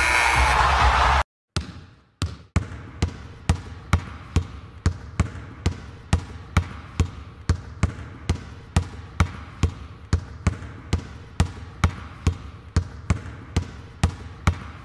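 A basketball being dribbled steadily, about two bounces a second, each bounce a sharp slap off a hard floor. It opens with the end of loud music and crowd noise that cuts off about a second in.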